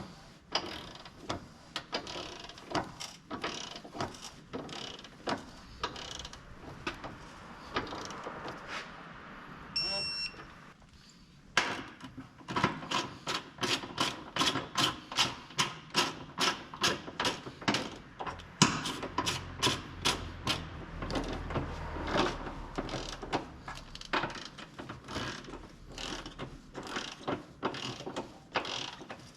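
Socket ratchet clicking as bolts are turned: scattered clicks at first, then a steady run of about three clicks a second through the second half. A short, high electronic beep sounds about ten seconds in.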